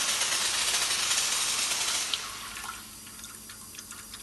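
A steady hiss that fades out about two and a half seconds in, followed by a few faint clicks.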